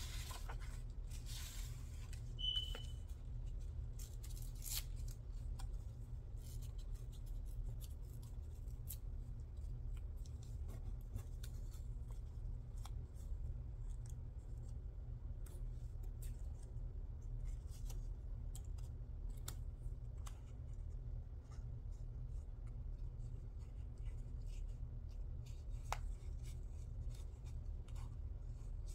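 Paper scraps being handled and shuffled on a desk, giving faint scattered rustles and light taps over a steady low hum. A short high tone sounds once about two and a half seconds in.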